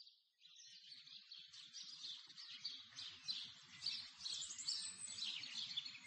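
Birds chirping and singing: many short, high chirps that fade in and grow louder, faint overall.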